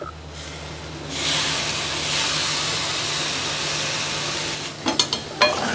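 Lemon juice sizzling as it is squeezed over potato pieces frying in a hot steel pan: a steady hiss that starts about a second in and dies away shortly before the end, followed by a few light clicks.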